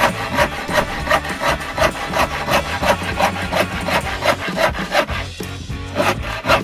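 Bahco PrizeCut universal hand saw (7/8 TPI) sawing across an old weathered wooden board, in quick even strokes about three a second, with a brief lull a little after halfway before the strokes pick up again.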